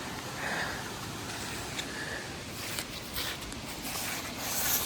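Steady hiss of light rain, with scattered footsteps and clothing rustle on the wet walkway, a denser rustle near the end.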